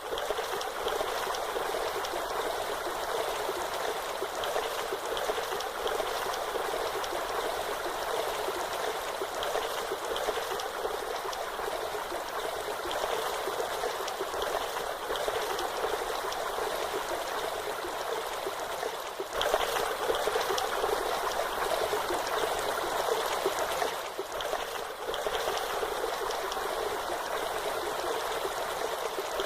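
Waterfall, a steady rush of falling and splashing water with little deep rumble. It gets a little louder about two-thirds of the way through.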